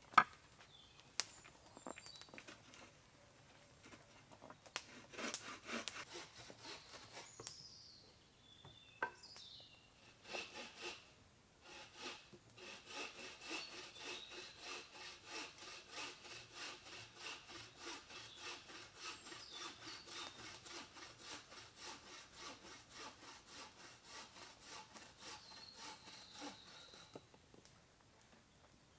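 Hand saw cutting through a wooden log in steady back-and-forth strokes. It comes in two short bursts at first, then runs without a break for about fifteen seconds before stopping.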